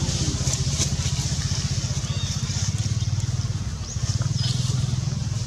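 Steady low rumble of an engine running, with a few faint high chirps over it.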